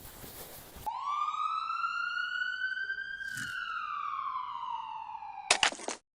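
A siren-like pitched tone: one slow sweep that rises for about two seconds and then falls for about two, ending in a short burst of noise before the sound cuts off suddenly.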